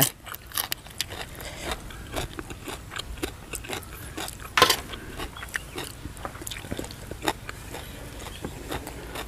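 Close-up eating sounds: chewing with short, crisp crunches of raw green vegetable stalks, one louder crunch about four and a half seconds in.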